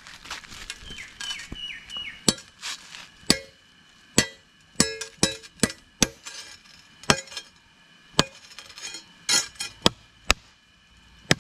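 A blade chopping into a young coconut palm to reach the edible heart: about fifteen sharp strikes at an irregular pace, some with a brief ring.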